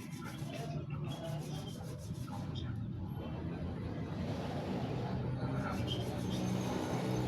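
A carbon brush being ground down to size for an impact drill's motor, a continuous scraping rub of carbon on an abrasive surface.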